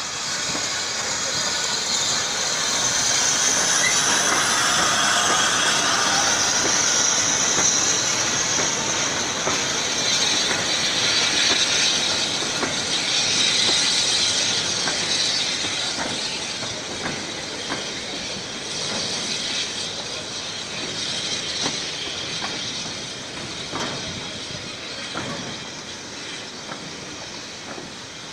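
Saddle tank steam locomotive hauling a short freight train slowly past, with steam hissing loudest in the first half as the engine goes by. The wagons' wheels follow, clicking and knocking over the rail joints, and the sound slowly fades toward the end.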